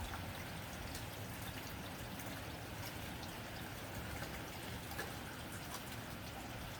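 Steady rain on a tin roof: an even patter with scattered sharper drop ticks.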